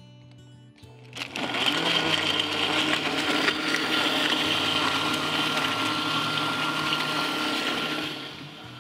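Countertop blender starting up about a second in and running steadily with a high motor whine, blending ice and frozen banana into a smoothie, then stopping shortly before the end.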